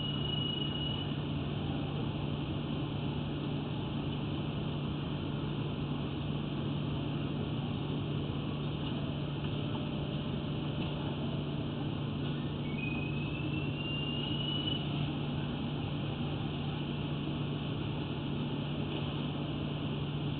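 A steady mechanical hum with hiss, unchanging throughout. A short rising whistle-like tone is heard at the start and again about 13 seconds in.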